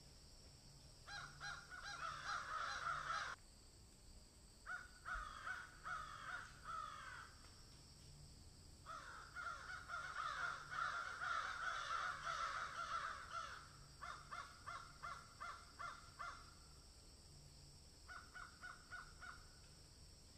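Animal calls: quick runs of short falling notes, in five bursts of a few seconds each, with brief gaps between.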